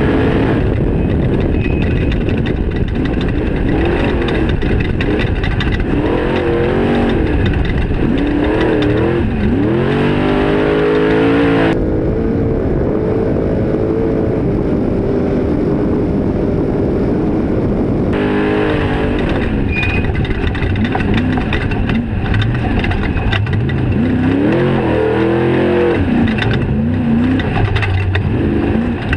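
Off-road Trophy truck engine at full throttle, revving hard with its pitch climbing and dropping again and again. For a few seconds in the middle it holds a steady high note.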